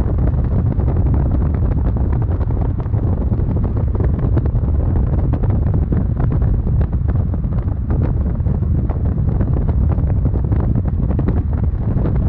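Wind buffeting the microphone: a steady, loud, low rumble with rapid flutter.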